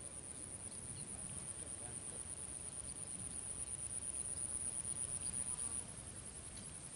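Insects trilling: one high, steady, rapidly pulsing trill that drops in level near the end.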